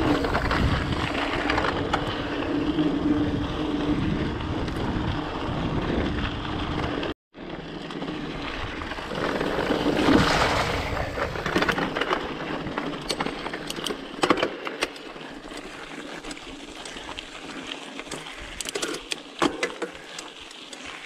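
Mountain bike riding a rough dirt trail: wind on the microphone and rolling tyre noise, with the bike rattling and knocking sharply over bumps in the second half. The sound drops out completely for an instant about seven seconds in.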